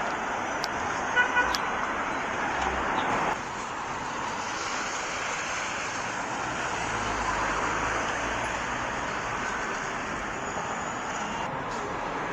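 Steady city street traffic noise with a short car horn toot about a second in. The traffic noise drops suddenly a little after three seconds and carries on more softly.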